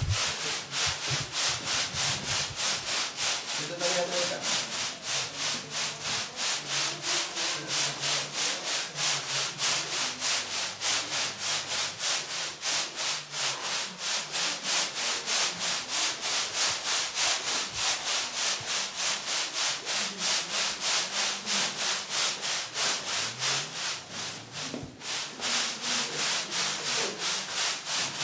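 Steady, rhythmic back-and-forth rubbing worked by hand, about three scraping strokes a second, briefly faltering near the end.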